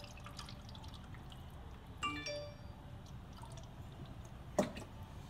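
Coolant pouring faintly from a one-gallon plastic jug into the expansion tank, topping it up to the max mark. About two seconds in there is a short ringing tone, and near the end a single knock.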